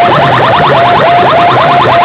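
Electronic siren-like warble blasted very loud through DJ sound-system loudspeakers: short rising chirp tones repeating rapidly, several a second, with some low bass underneath.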